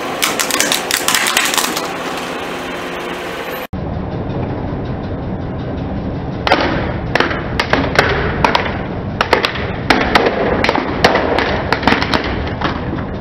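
A car tyre crushing a brittle gold-coloured decorative bowl: dense crackling for the first few seconds that stops abruptly, then, over a low rumble of the car, a string of sharp cracks and snaps as the bowl breaks apart.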